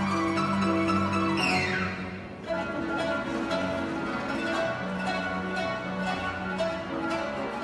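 Two qanuns, Armenian plucked zithers, playing a melody over upright piano accompaniment. About one and a half seconds in there is a quick falling glissando and a brief pause, then the plucked melody resumes over the piano.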